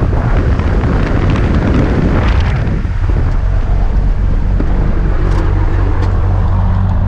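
Propeller engine of a small high-wing plane running with a steady drone, heard from inside the cabin.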